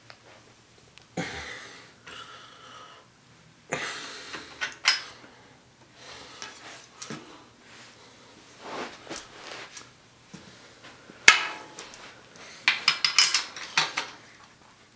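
Metallic clinks, knocks and rattles of a bicycle's rear wheel, chain and cog being handled by hand, coming as scattered separate knocks with a quick run of clicks near the end.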